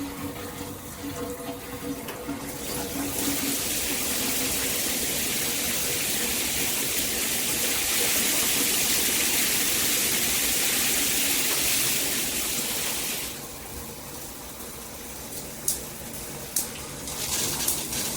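Water spraying from a rain shower head with a handheld spray combo. The spray grows to full strength about three seconds in and drops back about thirteen seconds in, followed by a few light clicks.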